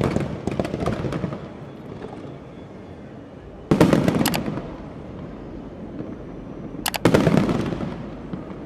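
Fireworks bursting: three heavy booms about three and a half seconds apart, each followed by a crackle of smaller pops and a fading rumble.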